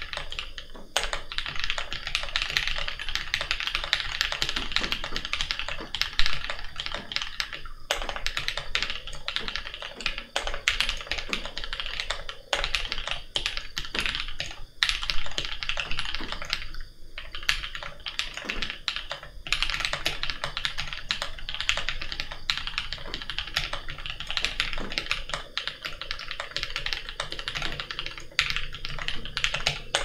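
Fast, continuous typing on a mechanical keyboard fitted with lubed KTT Strawberry linear switches, an acrylic plate and Akko cherry-profile keycaps. The keystrokes come in a dense stream with brief pauses about 8 and 17 seconds in, and a few strokes stand out louder.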